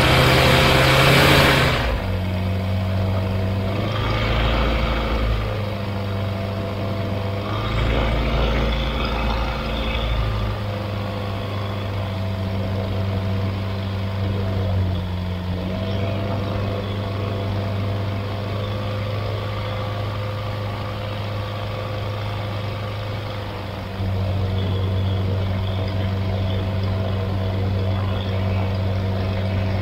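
Flight Design CTSW's Rotax 912 four-cylinder engine and propeller running at taxi power, a steady drone. A brief rush of noise comes in the first two seconds, and the engine grows louder about 24 seconds in.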